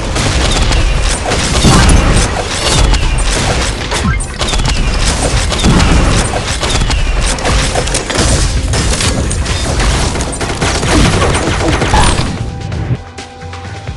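Consumer fireworks going off in a rapid barrage, a dense string of bangs and crackles that stops about twelve to thirteen seconds in.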